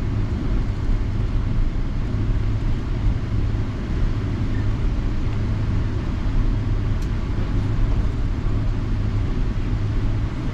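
Steady low rumble of an airliner's passenger cabin, with a faint click about seven seconds in.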